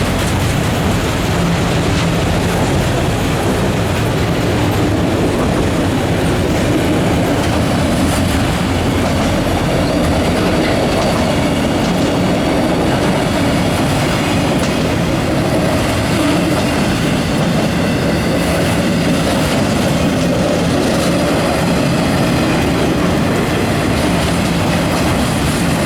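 CSX freight train cars rolling past on the rails: a steady, loud rolling noise with occasional clicks of steel wheels over rail joints.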